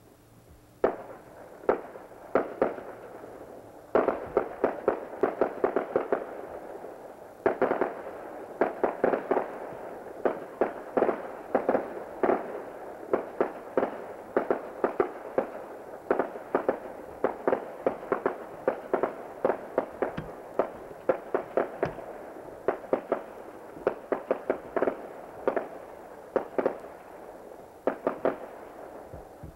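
Fireworks going off: many sharp bangs and pops in quick, irregular clusters over a continuous crackle, with brief lulls a few seconds in and again around seven seconds.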